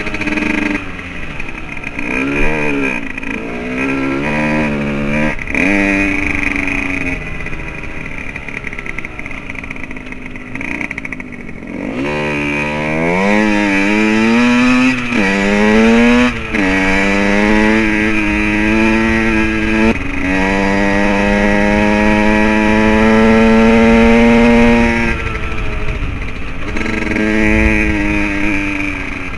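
Small dirt bike engine revving up and down as it rides through the gears. Its pitch climbs in quick sweeps about halfway through, then holds a steady high note for several seconds before easing off.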